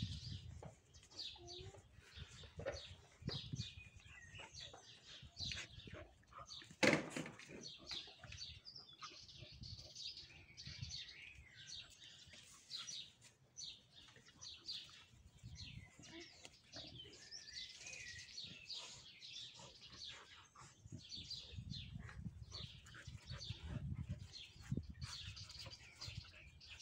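Small songbirds chirping steadily in the background while two puppies play-fight on grass, their scuffling and low growls coming through as soft low noises, with one sharp click about seven seconds in.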